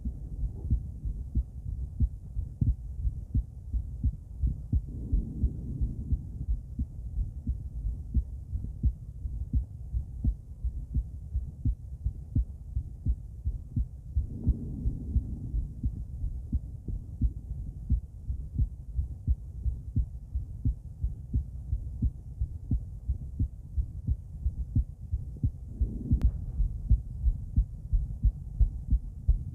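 A woman's heartbeat heard through a stethoscope with a microphone: a steady run of low lub-dub thumps. A sharp click comes a few seconds before the end.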